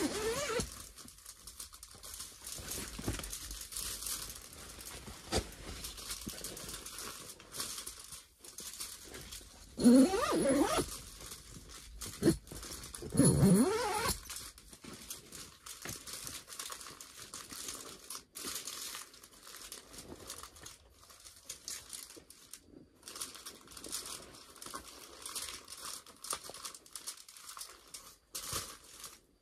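Aluminium foil crinkling and crackling as it is handled and folded by hand. It is interrupted about a third of the way in, and again a few seconds later, by two short, louder sounds that slide in pitch.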